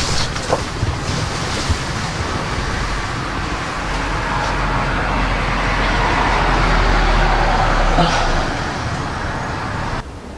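Outdoor road traffic noise, swelling and then easing as a vehicle passes, with a short knock about eight seconds in. The sound drops off suddenly near the end.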